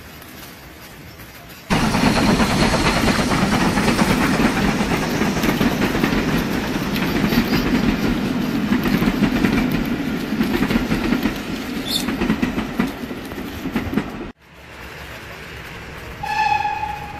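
HO-scale model freight cars rolling close by on Bachmann E-Z Track (plastic roadbed): a loud rumble with fast clicking of the wheels over the rail joints. It starts suddenly a couple of seconds in and cuts off sharply near the end. Just before the end comes a short horn toot.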